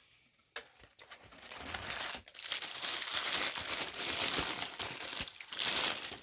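Takeaway food packaging being handled and opened, crinkling and rustling. It starts about a second and a half in and goes on busily to the end.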